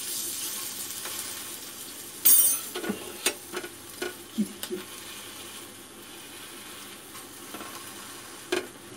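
A besan chilla bread sandwich sizzling as it toasts in butter in a pan, the sizzle gradually quieter, while a metal spatula and spoon scrape and tap against the pan several times, loudest about two seconds in.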